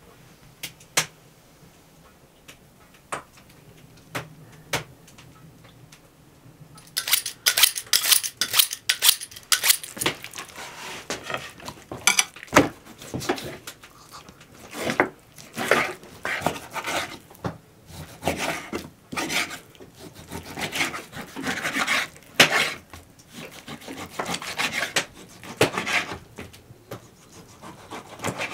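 Kitchen knife slicing raw pork on a wooden cutting board: repeated scraping strokes through the meat with sharp knocks of the blade on the board, starting about seven seconds in after a few light clicks.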